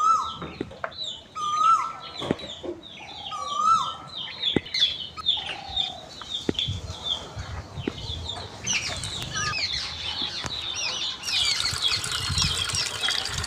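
Bird calls and chirping: a call with a rising hook repeats about every two seconds at first, over many quick high chirps that grow denser and louder about nine seconds in, with a few light clicks.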